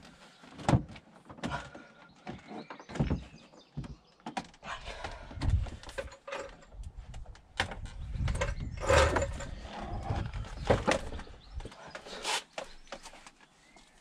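Irregular plastic clicks, knocks and a few heavier thuds as the retractable cargo cover of a Volvo V70 estate is unclipped and lifted out of the load area. The loudest clunks come about two-thirds of the way through.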